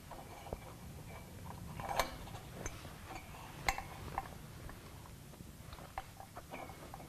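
Metal drapery pins being hooked onto curtain rod rings: irregular small clicks and ticks, the sharpest two about two and nearly four seconds in.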